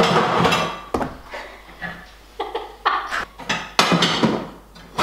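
Kitchen clatter as someone rummages through drawers and cupboards, with pots and utensils knocking: a rush of noise in the first second, then a string of separate sharp knocks and clicks.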